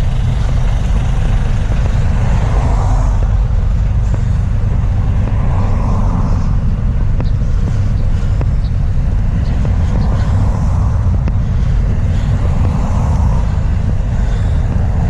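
Road traffic noise: a steady low rumble with vehicles swelling and fading every few seconds.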